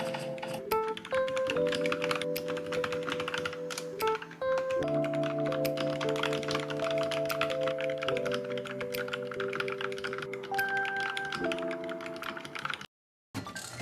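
Rapid typing on a Vissles V84 wireless mechanical keyboard with linear switches, a dense run of soft key clicks over background music. Everything cuts out briefly near the end.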